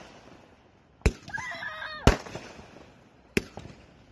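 Aerial fireworks going off: four sharp bangs at roughly one-second intervals, the second the loudest, with a short wavering high tone and a spell of crackle between the first two.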